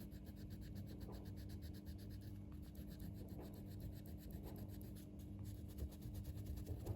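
Colouring on paper with fast, even back-and-forth strokes, a faint, steady scratching, over a low steady hum.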